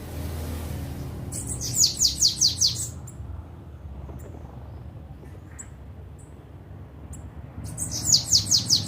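Bananaquit singing: two runs of quick, high, downslurred notes, each about a second and a half long, one starting about a second and a half in and the other near the end, with a few short high chips between them. A steady low rumble lies underneath.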